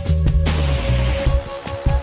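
Rock background music with electric guitar, bass and drums.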